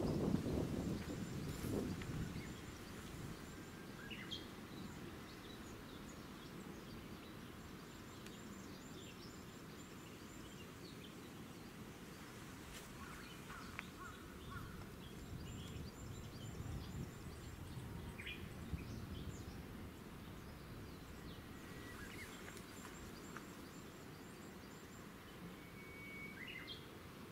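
Outdoor ambience: a steady low rumble, louder in the first couple of seconds, with scattered faint bird chirps and, now and then, a faint rapid high ticking.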